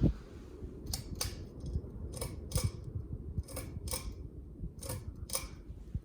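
Ceiling fan pull-chain switch clicking in four pairs, each pull and release a third of a second apart, over a low rumble.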